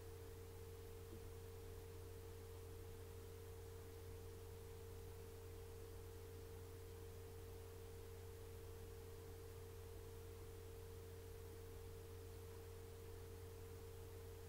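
Near silence: room tone with a faint steady low hum and a steady higher tone.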